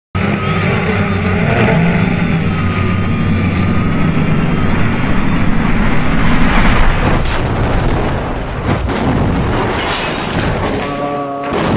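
A loud, dense low rumble with booms that starts abruptly, with a few sharp cracks past the middle and a brief steady tone of several pitches near the end.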